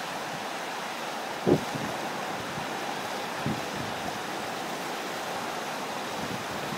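Steady rush of high-tide River Severn floodwater spilling over a low bank wall, with a short wind buffet on the microphone about one and a half seconds in and a fainter one a couple of seconds later.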